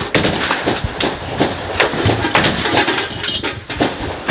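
An irregular run of sharp cracks and knocks, roughly three a second, over a noisy background.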